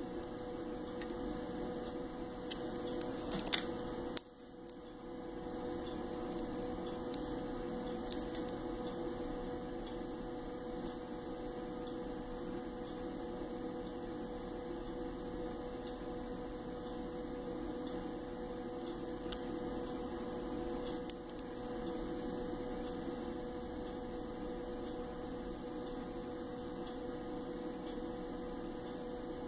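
Steady low electrical hum, with a few small clicks: a cluster about three to four seconds in and two more about twenty seconds in.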